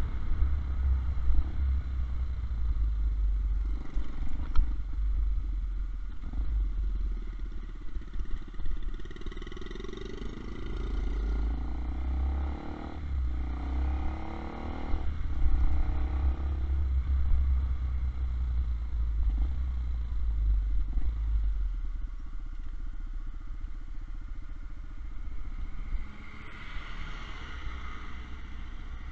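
Zanella ZR 150 single-cylinder motorcycle engine running on the move, its pitch rising as it accelerates through the gears twice, about a third and half way through, then easing off. Low wind rumble on the microphone sits under the engine throughout.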